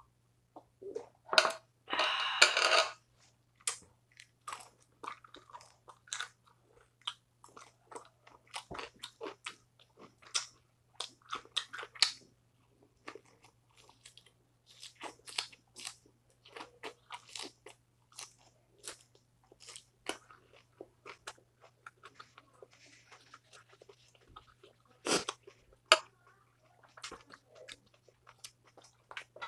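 Close-up mouth sounds of a person eating: wet clicks, crunches and chewing on a lettuce-wrapped bite of grilled pork belly. A louder rushing burst comes about two seconds in, just after a shot of soju, and there is one sharp loud crunch near the end.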